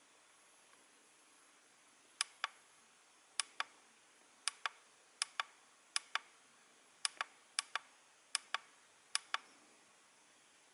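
Push buttons on AOMWAY Commander FPV goggles clicking, pressed nine times at roughly one-second intervals. Each press gives a sharp double click, press then release. Faint steady hiss lies between the clicks.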